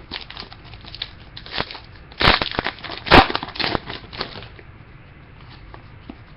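Crinkling and crackling of a trading card pack's foil wrapper being handled, with two louder crunches about two and three seconds in.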